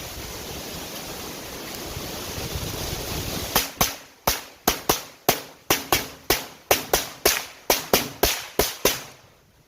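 Wind rushing on the microphone, then about three and a half seconds in a rapid string of about sixteen FN P90 shots (5.7×28mm), roughly three a second, each with a short echo, ending about nine seconds in.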